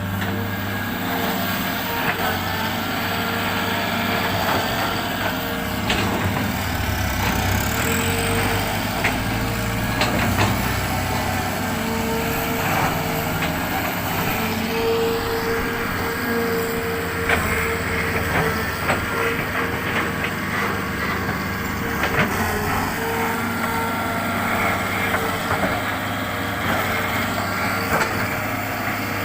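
Hitachi excavator's diesel engine running steadily at work, with a steady hum that swells and fades and occasional sharp knocks.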